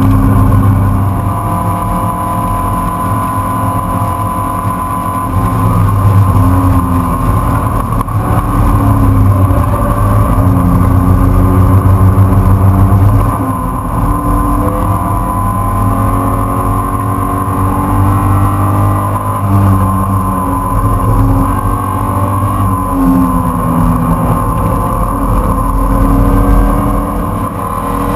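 Race car engine heard from inside the open, caged cockpit at speed on track. Its pitch climbs and drops again and again with throttle, and the loudness dips several times along the way.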